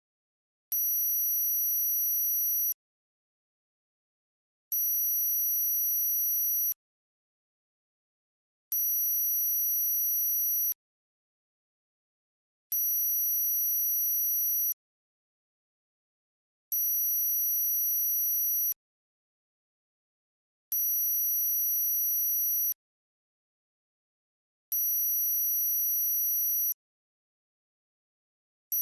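Electronic high-pitched tone for tinnitus masking, several pure pitches sounding together. It pulses on for about two seconds and off for two, seven times over, and an eighth pulse starts right at the end.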